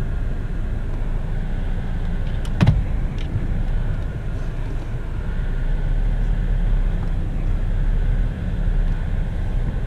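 Chevrolet Cruze heard from inside the cabin as it moves off slowly: a steady low engine and road rumble. A sharp click comes about two and a half seconds in.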